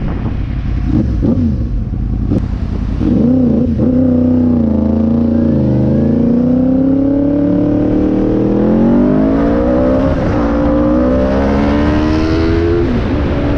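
Yamaha MT-10/R1 1000cc inline-four engine in a quad bike, pulling hard under acceleration. After a few short revs, its note climbs steadily through the revs for several seconds, then falls sharply near the end as the throttle closes or a gear changes. Wind and road rumble run underneath.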